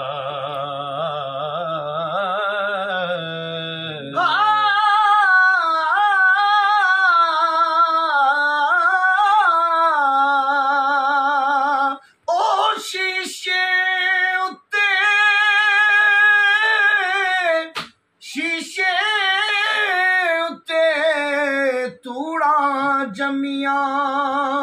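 A solo voice singing a Sufi devotional kalam in Punjabi, drawn out in long ornamented held notes with a wavering pitch, with short breaks for breath.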